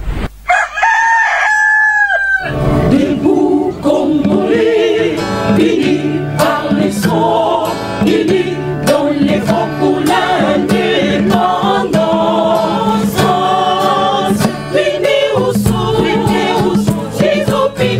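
A rooster crows once, one long call falling at its end. About two and a half seconds in, music with choir singing and a steady beat starts and carries on.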